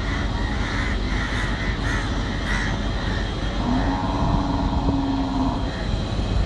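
Rubber-tyred Mumbai Monorail train running past on the elevated guideway overhead: a steady rumble, with a steady hum from the train for about two seconds past the middle. Short calls repeat several times in the first three seconds.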